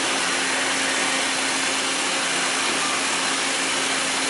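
Coolant jets spraying and splashing inside a Mitsui Seiki HJ63A horizontal machining center: a steady hiss, with a steady low machine hum underneath.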